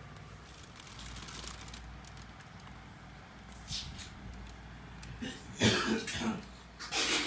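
A person coughing in a few short bursts over a faint low hum, about five seconds in and again near the end.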